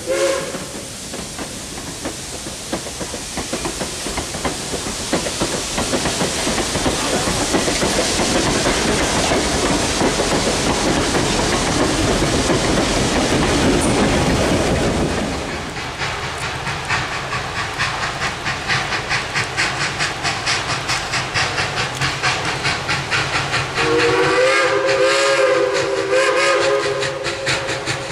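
Passenger coaches rolling past, wheels clattering on the rails. After a cut, the 0-6-0 steam locomotive CNJ #113 comes on with quick, even exhaust chuffs and gives one long chime-like whistle blast about 24 seconds in.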